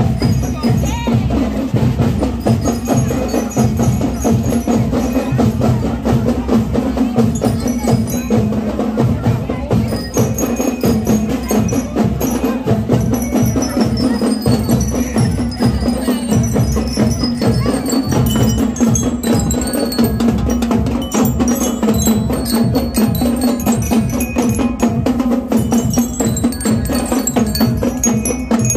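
School marching band drums, snare and bass, keeping a steady march beat, with bell-like struck notes ringing out a melody over them.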